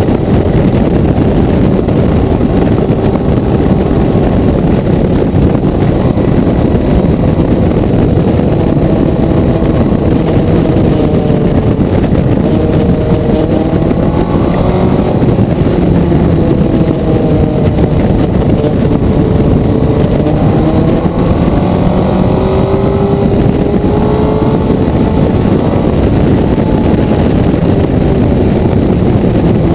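Motorcycle engine running under way, its note rising and falling several times as the revs change, under heavy steady wind and road noise.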